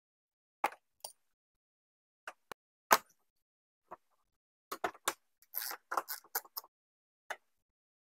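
A string of short, sharp clicks and knocks at uneven spacing, such as parts and tools being handled. The loudest comes about three seconds in, and a quick flurry follows between about five and seven seconds.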